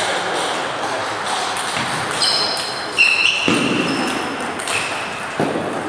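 Table tennis rally in a sports hall: the celluloid ball clicking off bats and table, with several high squeaks of shoes on the wooden floor partway through, over the steady hum of play and voices from other tables.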